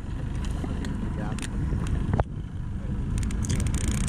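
Steady low rumble of a boat on open water, with a sharp knock about two seconds in and a quick run of light clicks near the end.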